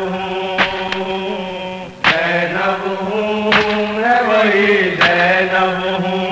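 Noha chanting: voices holding a long, drawn-out note with a slight bend in pitch, kept in time by a sharp beat about every one and a half seconds.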